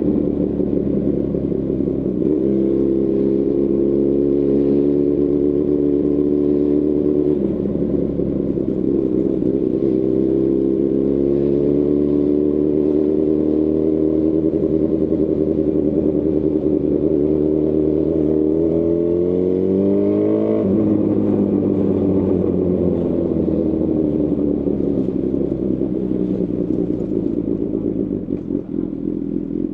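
2018 Honda CB1000R's inline-four engine through a Lextek CP1 full exhaust system, running steadily on the move. About 18 seconds in, the revs climb for a few seconds, then drop sharply, and the note sinks slowly after that.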